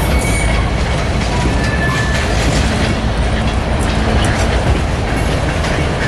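Freight train of boxcars rolling past at close range: a steady rumble of steel wheels on rail, with scattered clicks and clanks from the wheels and couplers.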